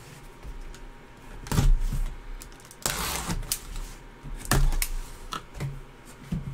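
A cardboard box being handled and opened by gloved hands: a few separate knocks and thumps of cardboard against the table, with a longer rustle a little before the middle.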